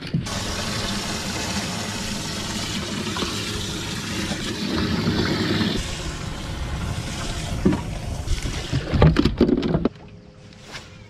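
Water splashing and churning in a bass boat's open livewell, a steady rushing noise. A few knocks come near the end, and then the noise cuts off suddenly.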